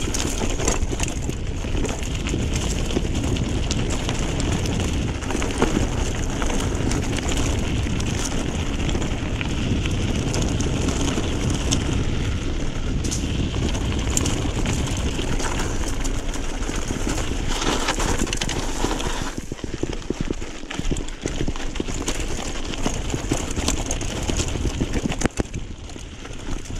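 Mountain bike rolling downhill over a rough, rocky dirt road: steady tyre noise on the loose surface, with frequent clicks and rattles from the bike as it is shaken. It gets quieter for a moment twice in the last third.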